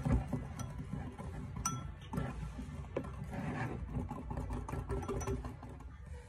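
Wire balloon whisk beaten by hand in a ceramic bowl: a fast run of light clicks and clinks as the wires strike the bowl, thinning out and stopping near the end. The mixture is being whipped until it thickens.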